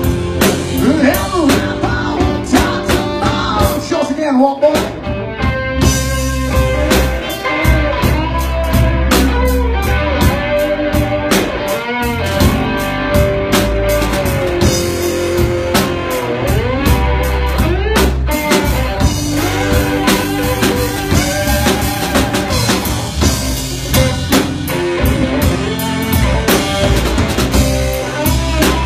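Live blues-rock band playing an instrumental passage: a lead guitar line with bending notes over a drum kit and a steady low end.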